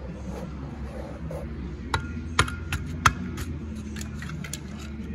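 Sharp metal clicks and clinks, a handful close together between about two and three and a half seconds in, some ringing briefly, from a wire pick worked against an old carburetor clogged with a bee nest in an aluminum drain pan. A steady low hum runs underneath.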